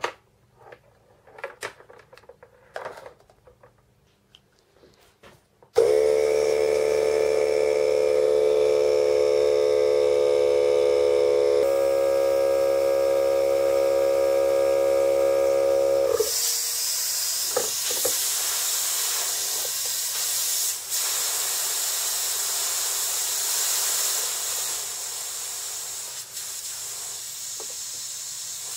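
Faint clicks of handling, then an oil-free air compressor's motor starts suddenly about six seconds in and runs with a loud, steady hum for about ten seconds before stopping. A steady hiss of compressed air through the mist-coolant sprayer follows, easing slightly near the end.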